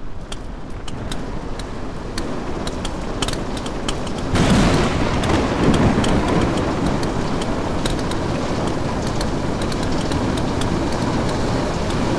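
Heavy rain and running water: a steady rushing noise with scattered sharp ticks of drops, growing louder about four seconds in.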